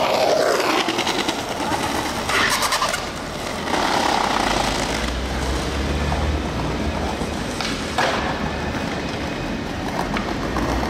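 Alstom Citadis tram running slowly over curved track, with a low rumble from about four seconds in over steady street noise. A single sharp click about eight seconds in.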